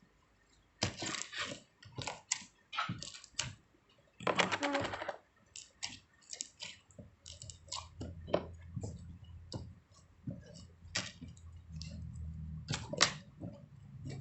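Irregular clicks and small rattles of small hard objects being handled, with a longer rattling burst about four seconds in. A low steady hum comes in about halfway through.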